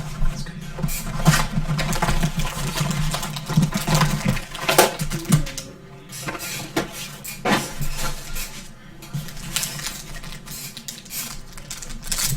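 Trading card box and foil card packs being handled and torn open: irregular crinkling, rustling and tearing of wrappers and cardboard.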